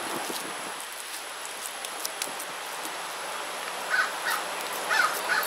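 A bird calling outdoors over a steady background hiss. Near the end come a quick run of short, repeated calls, each dropping a little in pitch, several a second, often in pairs.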